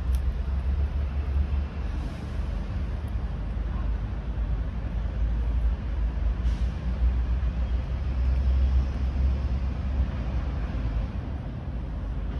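Steady low rumble of outdoor background noise with a light hiss over it, rising and falling a little in level.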